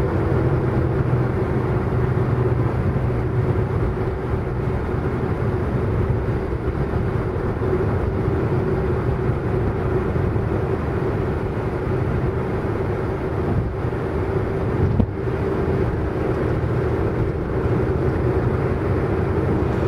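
Motor scooter's small engine running steadily during a ride in traffic, a continuous hum with road noise.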